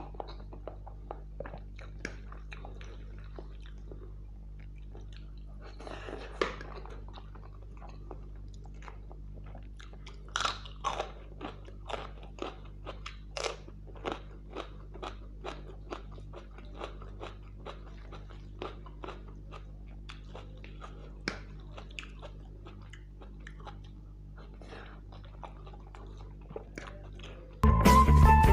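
Close-miked ASMR eating: chewing with frequent crunchy bites, a few louder crunches scattered through. Near the end a loud burst of music cuts in.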